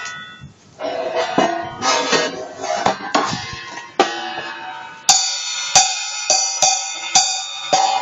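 Wuhan 14-inch hi-hat cymbals struck repeatedly, each hit ringing on. First comes a fast run of overlapping strikes, then single hits about half a second apart. The last hit, near the end, leaves a fuller, lower wash.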